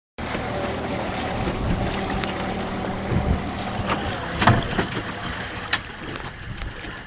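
Fishing boat's engine running steadily under wind and water noise, with a couple of sharp knocks about four and a half and nearly six seconds in.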